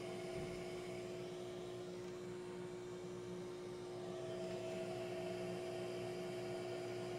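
Heat gun running with a steady fan hum and hiss, heating suspect transistors on an amplifier board to see whether the channel's noise gets worse with temperature. A higher tone in the hum drops out for about two seconds midway, then returns.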